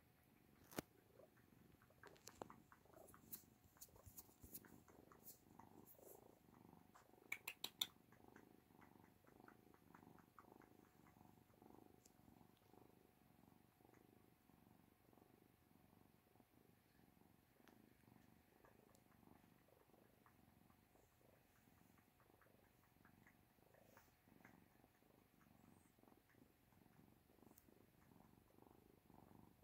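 Soft, steady purring from an Oriental mother cat and her nursing kittens. In the first several seconds there are about a dozen sharp clicks, four of them in quick succession.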